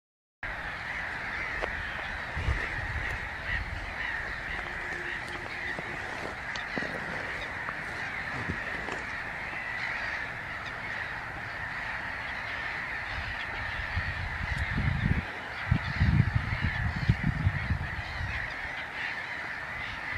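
A dense, steady chorus of many distant waterbirds calling over the lake, with bursts of low rumble in the last few seconds.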